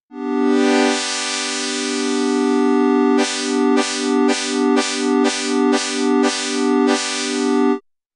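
Synclavier Regen synthesizer playing a held chord. After about three seconds the chord starts pulsing in a regular staccato, about two pulses a second, from its frame and modulator settings, then cuts off sharply near the end.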